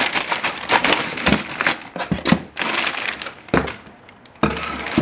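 Clear plastic bag around a new suspension fork crinkling and rustling in irregular bursts as the fork is handled and lifted out of its cardboard box, with a quieter spell about four seconds in.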